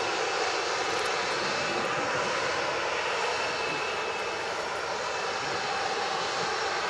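The twin CFM56-7B turbofan engines of a Boeing 737-800 running steadily, an even jet roar with a faint high whine.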